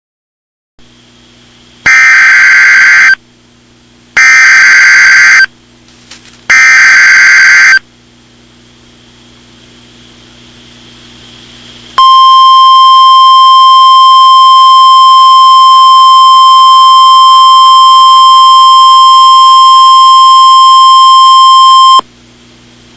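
Emergency Alert System SAME header: three loud bursts of digital data tones, about a second apart. After a short pause comes the steady single-pitch 1050 Hz NOAA Weather Radio attention tone, held for about ten seconds, which signals the start of a weather warning broadcast, here a blizzard watch.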